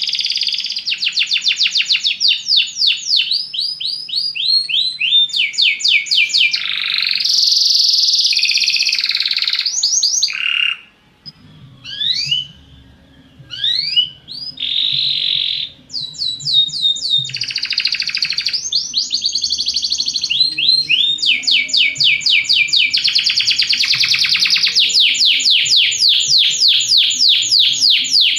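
Belgian canary singing: long, fast trills of quickly repeated notes, broken midway by a stretch of scattered single notes and short pauses, then back to a long continuous trill.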